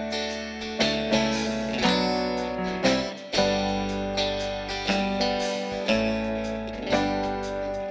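Live band playing an instrumental intro: guitar chords strummed about once a second, with low bass notes beneath.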